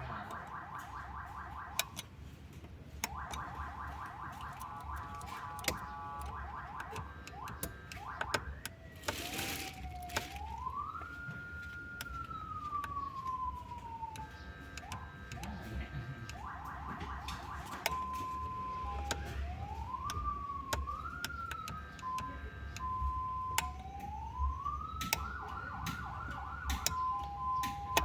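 Electronic ambulance siren being tested, switching between its tones: a two-tone hi-lo, fast warbling yelps, and a slow wail that rises and falls. There are scattered clicks, and a short hiss about nine seconds in.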